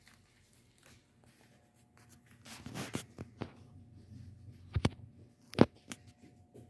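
Rustling and scraping handling noise with a few sharp knocks, the loudest about five and a half seconds in, over a faint steady hum.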